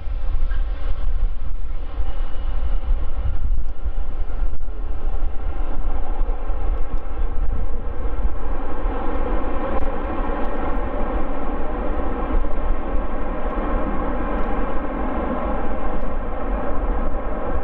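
Jet engines of a Boeing 787-8 rolling out on the runway just after touchdown: a steady engine noise that grows fuller and louder about halfway through.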